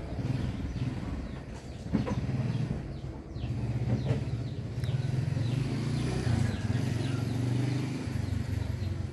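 A motor vehicle's engine running close by, a steady low rumble, with birds chirping over it.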